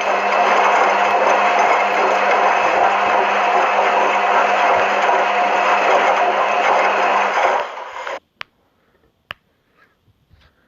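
Washing machine running: a steady motor hum under a loud churning noise that stops abruptly about eight seconds in, leaving a few faint clicks.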